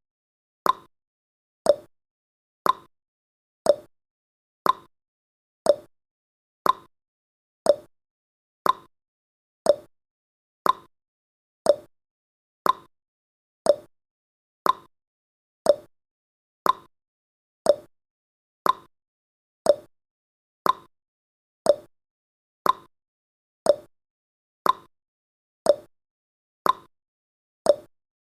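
Countdown timer's clock-tick sound effect: one short, sharp tick every second, evenly spaced.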